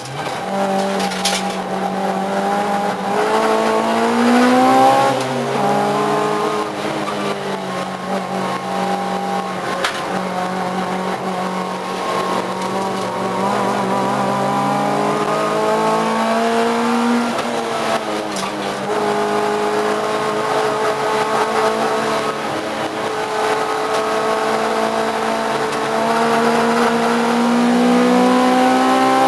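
Race car engine heard from inside the cockpit under hard driving, its pitch climbing as it revs up and dropping back sharply at gear changes, about 5 and 18 seconds in, then climbing steadily again.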